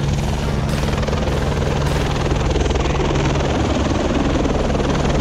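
Helicopter flying close by, its rotors beating steadily over a low engine hum, getting a little louder about two seconds in.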